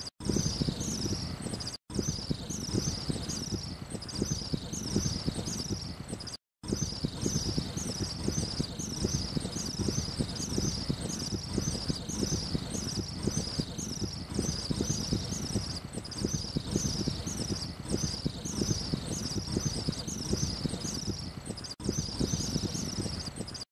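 A high-pitched chirp repeating about twice a second, steady and regular, over a low crackling noise; the sound cuts out briefly three times.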